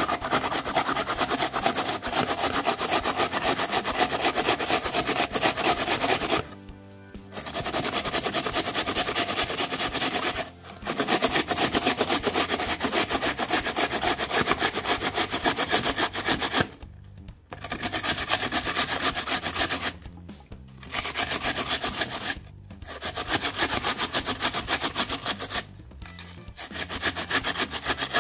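An onion being grated on a flat metal grater: fast, rasping back-and-forth strokes, stopping briefly several times.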